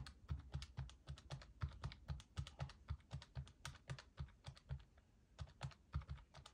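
Calculator keys tapped in quick succession, a rapid run of light clicks with a short pause near the end, as amounts are added up.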